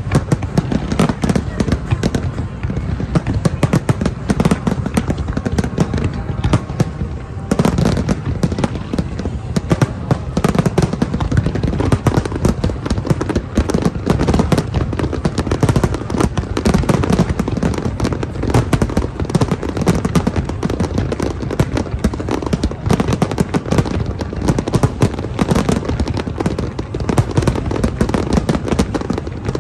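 A large fireworks display: a dense, continuous barrage of aerial shells bursting and crackling, many bangs a second with no let-up.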